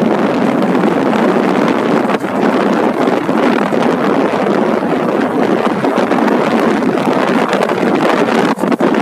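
Steady wind rush over the microphone of a moving motorcycle.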